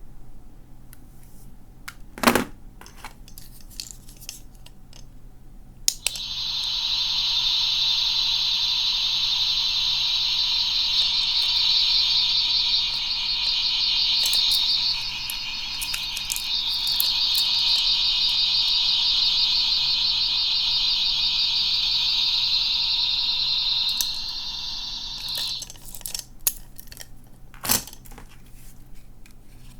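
Small electronic sound toy from a capsule machine playing a loud, steady, high-pitched alarm-like tone for about twenty seconds, with a short dip partway through. A sharp click comes a couple of seconds before the tone starts.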